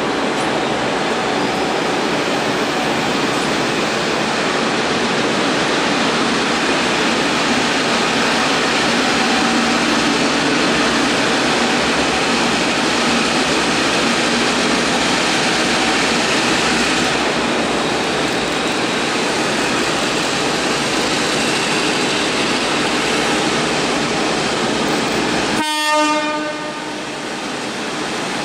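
Victorian B class and S class diesel-electric locomotives working steadily as they pull a loaded freight train away, a loud, continuous mix of engine and rail noise. Near the end there is a short, sudden horn toot.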